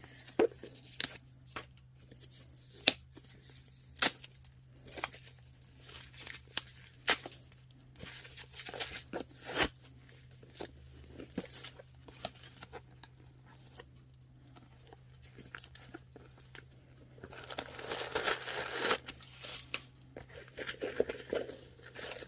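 Packaging being crinkled and torn while a new handbag is unwrapped and handled, with scattered sharp crackles and clicks. A longer stretch of rustling comes near the end.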